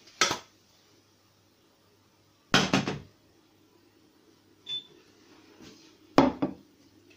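Kitchen clatter of a frying pan and ceramic plate knocking together, in three short bursts, the loudest about two and a half seconds in, as an omelette is slid onto the plate and the plate set down. A short beep from the hob's touch controls comes between them, over a steady low hum.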